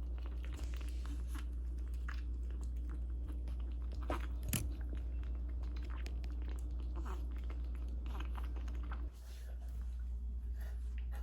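Pomeranian puppy eating, chewing and crunching its food in a run of small quick clicks, with one sharper click about halfway through. A steady low hum sits underneath and stops about nine seconds in.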